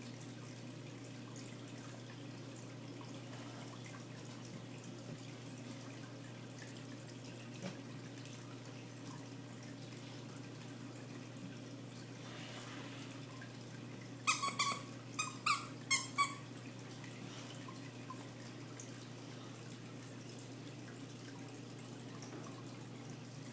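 Saltwater aquarium's pump running with a steady low hum under a faint wash of circulating water. A little past halfway, a quick run of about half a dozen short, high-pitched squeaks stands out over it.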